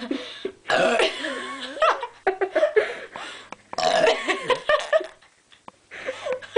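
A person burping on purpose: two long, drawn-out burps with a wavering pitch, the first about a second in and the second about four seconds in, with shorter burps and throat sounds between them.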